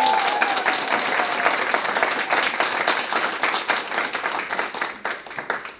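Audience applauding with steady hand clapping. Near the start one voice calls out over the clapping, rising and then falling in pitch. The clapping dies down near the end.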